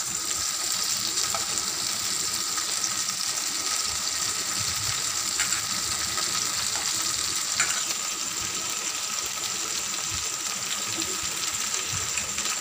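Chopped okra, tomato and onion frying in mustard oil in a pan: a steady sizzle, with two short clicks about five and a half and seven and a half seconds in.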